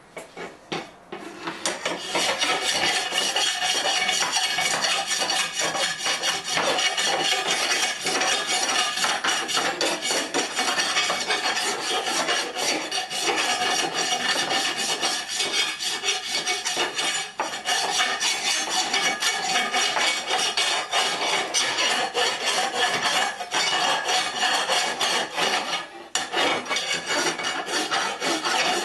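A grinder abrading metal, running continuously to clean paint off the piece and easing off briefly twice. A metal clank comes just at the start before the grinding begins.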